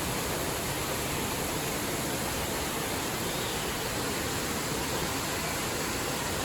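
Steady rushing of falling water from a small waterfall, an even hiss that neither rises nor falls.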